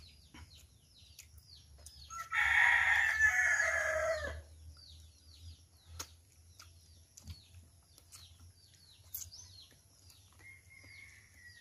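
A rooster crows once, about two seconds in, a loud call lasting about two seconds. Faint, quick high chirps sound in the background.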